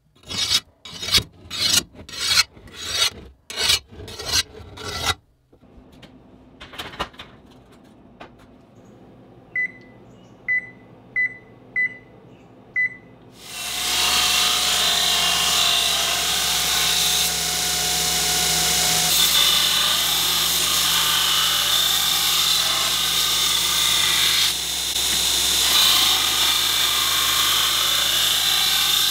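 A hardness testing file scraped across a forged steel sword blade in about nine quick rasping strokes, a check of how hard the blade is, followed by a few light metallic knocks and five short high ticks. About halfway through, a belt grinder starts and grinds the steel blade steadily to the end.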